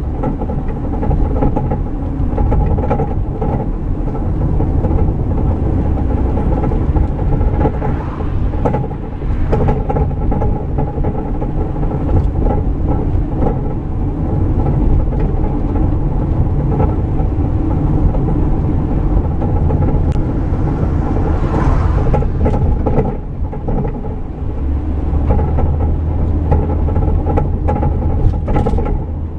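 Van driving, heard from inside the rear: steady road and engine rumble with irregular clunks and rattles from the rear axle. The clunking is the sign of a broken track bar whose end has snapped off its body mount, letting the axle shift from side to side.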